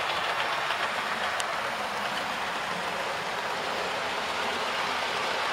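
Model of a rebuilt Merchant Navy class steam locomotive with a rake of Pullman coaches running along the layout's track: a steady rolling rattle of the wheels on the rails.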